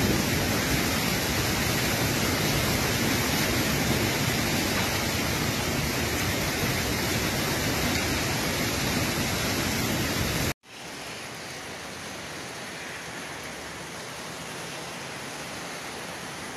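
Hail and heavy rain pelting rooftops: a loud, dense, steady hiss. About ten seconds in it cuts off abruptly and a much quieter steady hiss follows.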